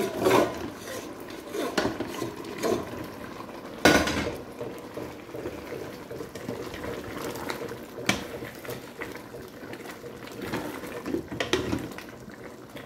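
A cooking spoon scraping and knocking against metal pots as a fried sauce is scraped out of one pot into another and then stirred in. There is a loud clank about four seconds in and a few sharper knocks later.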